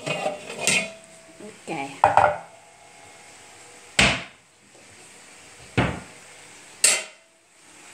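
Stainless steel pots and a pot lid clattering as the lid is pulled out from a stack of pans in a cupboard, the metal ringing briefly. Three separate sharp knocks follow about four, six and seven seconds in, the last with a short metallic ring.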